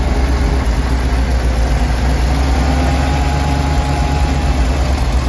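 International 549 V8 gasoline engine of a 1968 International Fleetstar A truck idling steadily, heard close up in the open engine bay.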